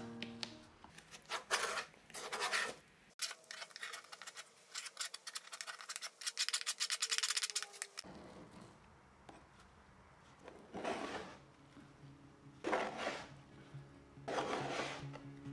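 Metal paint scraper pushed across a wooden cabinet panel, lifting softened, wrinkled old paint in separate scraping strokes, with a run of quick, rapid scrapes in the middle.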